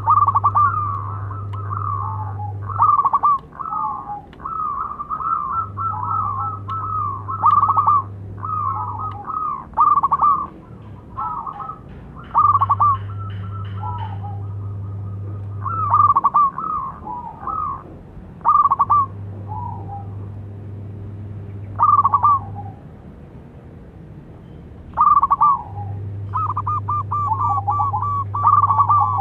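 Zebra doves (perkutut) calling: repeated phrases of quick, rippling coo notes with short pauses between them, sparser in the second half. A low steady hum comes on and stops every few seconds.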